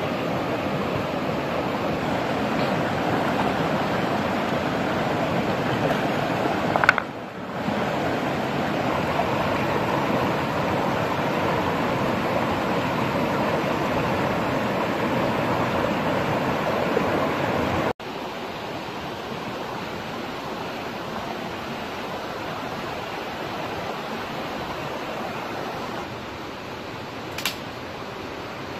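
Steady rush of a fast-flowing stream over rocks. About two-thirds of the way through it drops suddenly to a quieter steady wash, and there is a single short click near the end.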